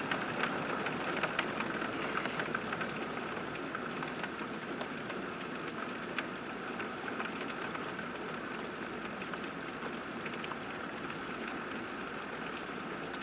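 Heavy rain pouring steadily, an even hiss peppered with small drop ticks.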